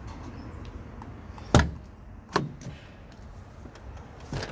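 Iveco truck cab door being opened: a sharp clunk of the latch about a second and a half in, a second knock shortly after, and a fainter knock near the end.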